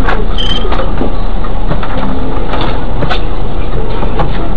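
Vehicle driving: loud steady engine and road noise with scattered clicks and rattles, and a short high tone about half a second in.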